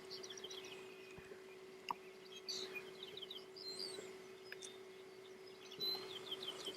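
Small songbirds calling faintly in quick runs of short, high chirps: a run at the start, another about two and a half seconds in, and another near the end. A faint steady hum runs underneath.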